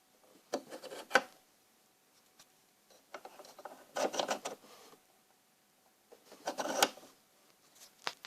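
Handling noise: three short bouts of rubbing and scraping with sharp clicks, and a single sharp click near the end.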